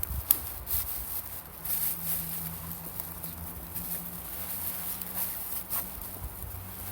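Freshly lit campfire kindling catching and crackling, with irregular sharp pops. A low steady hum runs underneath from about two seconds in.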